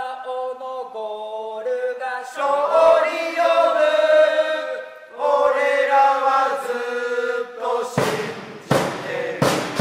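Football supporters' chant for a single player, sung by voices holding long sustained notes that step up and down, with a short break about five seconds in. About eight seconds in, loud sharp hits come in at a steady beat, roughly three every two seconds.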